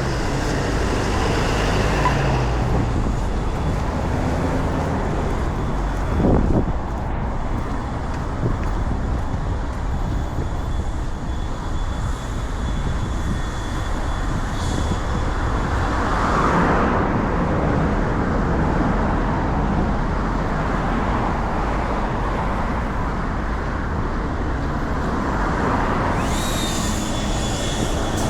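City road traffic: a steady rumble of cars passing, swelling as vehicles go by, with a brief high-pitched squeal near the end.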